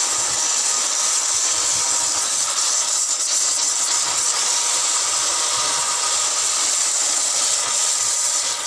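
Wood lathe spinning a turned table leg while it is sanded by hand, giving a steady hiss.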